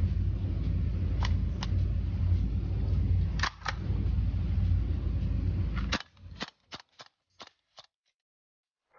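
Tokyo Marui AKM gas blowback airsoft rifle firing: sharp pops, with a close pair about three and a half seconds in and a string of fainter pops after about six seconds. A steady low rumble under them cuts off suddenly at the sixth second.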